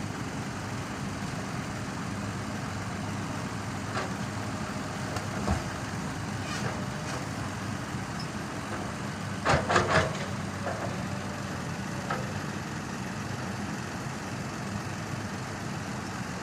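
Diesel truck engine idling steadily. A brief, louder cluster of sharp sounds comes about nine and a half seconds in.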